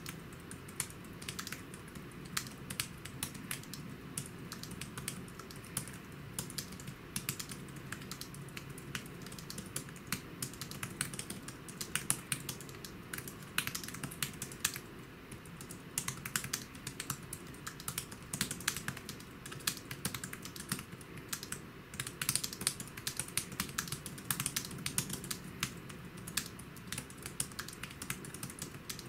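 Fast, continuous typing on a Battop Bluetooth keyboard: a quick run of key clicks, with some keystrokes louder than the rest.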